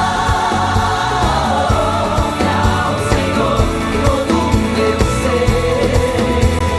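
Contemporary gospel worship song: a choir of voices singing together over a full band with drums, bass and keyboards.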